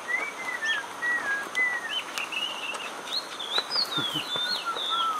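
Bird calls: a run of clear whistled notes that slide up and down in pitch, lower-pitched through the first two seconds, then higher and quicker from about three seconds in.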